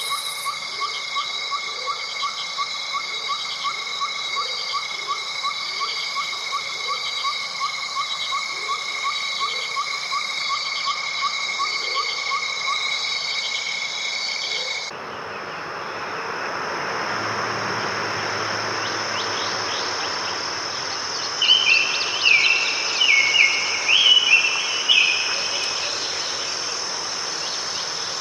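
Chorus of crickets and other insects: several steady high trills with a chirp repeating about twice a second. About halfway through the chorus changes abruptly to a different steady high trill over a soft hiss, and a bird calls in a few short bursts near the end.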